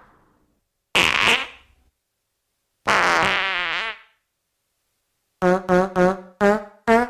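Cartoon fart sounds: a short burst about a second in, then a longer wavering one about three seconds in. From about five and a half seconds, a quick run of short horn-like notes, about two a second.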